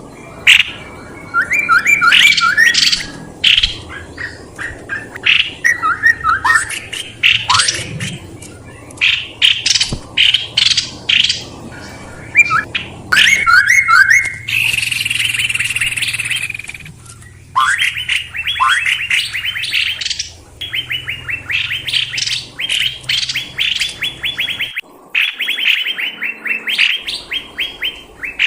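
Songbird song used as a bird-lure call: fast runs of repeated chirping notes and sharp sweeping calls, with one longer held note about halfway through.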